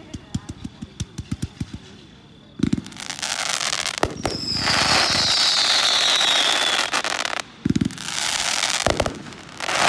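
Sunwing 'Sparta' 168-shot 500 g firework cake firing. A rapid string of sharp launch pops, about six a second, runs for the first two and a half seconds. Then a heavy thump and a long loud rush of crackling comets follows, with a falling whistle in the middle. Another thump and crackling rush come near the end.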